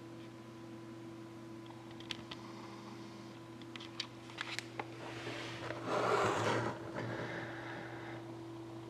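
Faint handling noise over a steady low electrical hum: a few light clicks, then a brief rustle about six seconds in.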